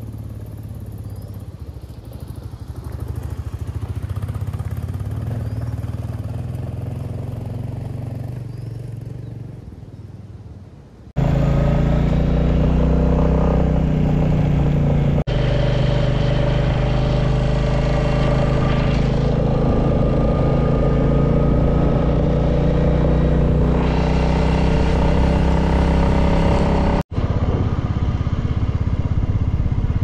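Royal Enfield Classic 350's single-cylinder engine: first a moderate engine note that swells and then fades away over about ten seconds as the bike rides past, then, after a sudden change, the engine heard loud and close from on the bike while riding, a steady note to the end.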